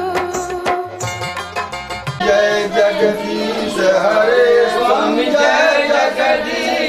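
Indian devotional music: a singing voice over steady drum beats for the first two seconds, then several voices singing together.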